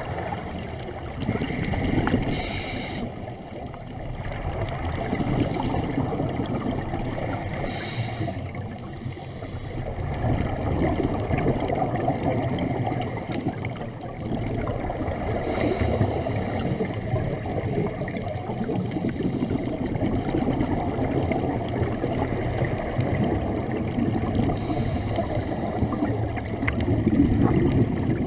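Scuba regulator breathing heard underwater: four short hisses several seconds apart as air is drawn through the regulator, with bubbling exhaust and a muffled water rush in between.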